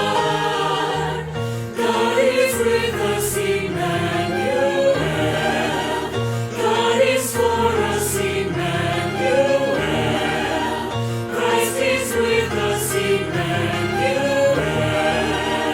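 A choir singing a slow hymn with sustained chords over a steady low accompaniment.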